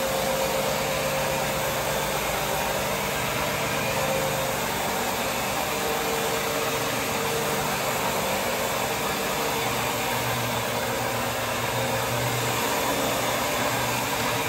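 Counter-rotating brush (CRB) floor machine running steadily, its motor droning and its brushes scrubbing across a linoleum floor to strip built-up wax.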